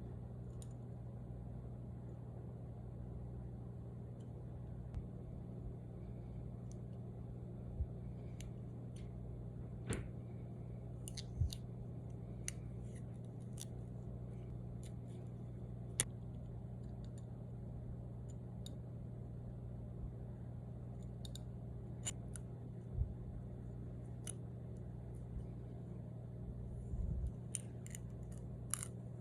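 Stickers and glass jars being handled: scattered light clicks, taps and crackles, with a steady low hum underneath.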